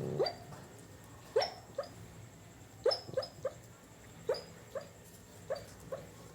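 Dog snoring: a series of short rising squeaks, some single and some in quick pairs or threes, about every one to one and a half seconds.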